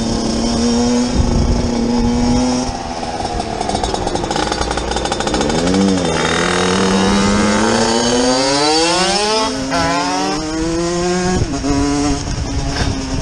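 Small motorcycle engines on the move, the nearer one revving: its pitch dips sharply about five and a half seconds in, climbs steadily for several seconds, then drops again near the end.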